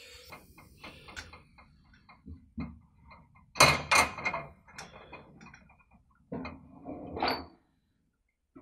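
Scattered light clicks and knocks of chainsaw parts being handled while the magnetic flywheel is fitted onto the crankshaft of a Stihl 017 engine. The two loudest knocks come close together about three and a half seconds in, with another small cluster a few seconds later.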